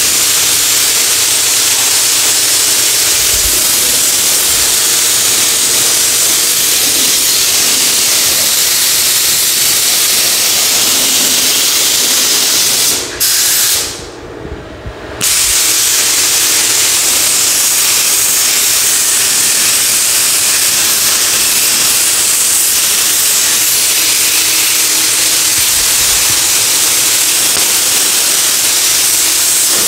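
Compressed-air gravity-feed paint spray gun hissing steadily while spraying a light ground coat. It stops twice briefly about halfway through as the trigger is let off, then runs on.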